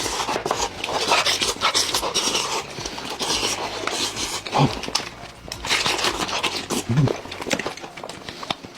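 Close-up eating noises: wet chewing and smacking with scattered crunchy clicks, going on in uneven bursts.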